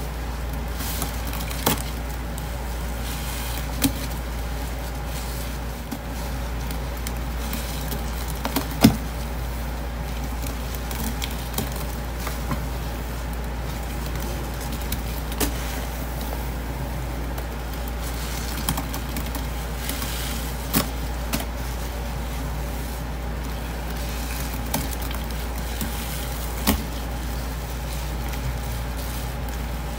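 Sponges soaked in thick blue detergent paste being squeezed and kneaded by gloved hands in a stainless steel sink: wet squelching with scattered sharp crackles and pops, the loudest about nine seconds in, over a steady low hum.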